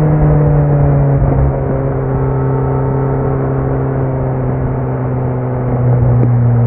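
Kawasaki Z900's 948 cc inline-four running through a Leo Vince muffler with no dB killer, a deep steady exhaust drone at moderate revs. The pitch eases down slowly and the note drops back after about a second and a half, then grows louder again as the throttle opens near the end.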